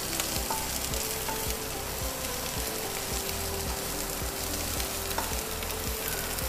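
Sliced cabbage, carrot, green pepper and onion sizzling in a non-stick wok as a wooden spatula stirs and tosses them, with scattered scrapes and taps of the spatula on the pan.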